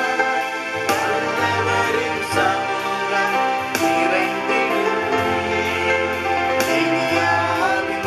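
Worship song played on a Yamaha PSR-S950 arranger keyboard with sustained chords and a steady beat, and a man's voice singing along.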